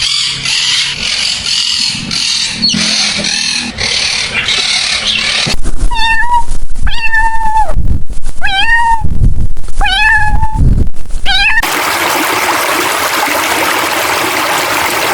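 A domestic cat meowing five times in quick succession, each meow bending in pitch. Before the meows there is a rougher, noisier stretch. Near the end the meows give way to an even, steady rushing noise like running water.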